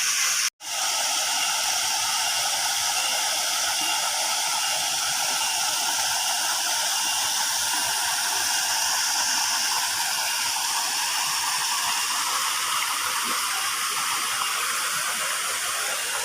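Waterfall pouring and splashing: a steady, loud rush of falling water that drops out for an instant about half a second in.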